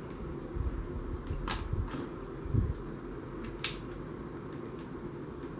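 Allen key being turned by hand to back out small M4 screws from a toy foam-dart blaster's body, with light handling knocks and a couple of sharp clicks, about a second and two seconds apart, over a steady background hum.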